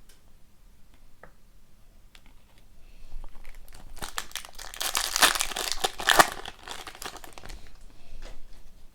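Foil wrapper of a Series Two hockey card pack crinkling and tearing, loudest for a couple of seconds in the middle, with light clicks and rustles of cards being handled before and after.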